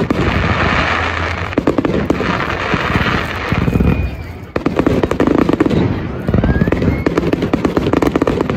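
Fireworks display: dense, rapid crackling and popping with repeated bangs throughout, and a faint whistling glide twice near the middle.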